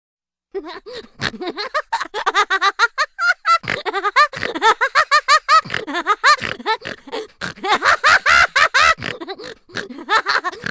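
Cartoon-style laughing sound effect: a long run of quick, pitched laughing bursts, each bending up and down in pitch, beginning about half a second in.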